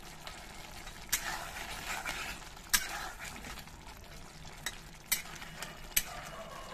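A flat spatula stirring green chillies in a thick curd masala in a metal kadai, knocking and scraping against the pan about five times over a steady low sizzle as the masala cooks down.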